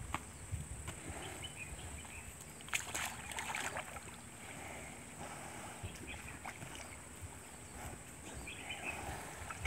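Water buffalo wallowing in a muddy pond, water lapping and sloshing around them as they shift, with a louder burst of splashing about three seconds in.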